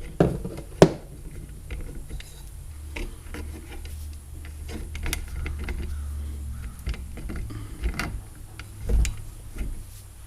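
Scattered clicks and knocks of metal parts being handled and fitted while a trolling motor's lower unit is reassembled, with a low hum underneath for a few seconds in the middle.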